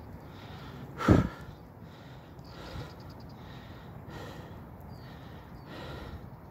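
A person breathing hard close to the microphone, a breath every second or so, with the loudest, a snort-like exhale, about a second in. A steady rushing noise runs underneath.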